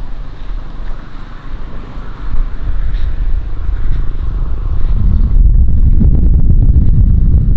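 Strong wind buffeting the microphone: a loud, low rumble that gets louder about five seconds in.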